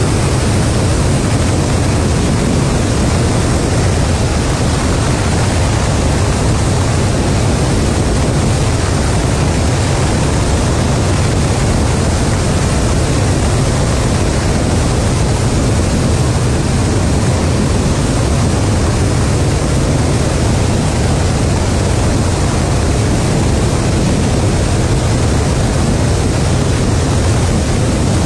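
Tupolev Tu-160 bomber in flight, heard from a camera outside on its tail: the steady, loud rush of its four Kuznetsov NK-32 jet engines and the airstream, heaviest in the bass.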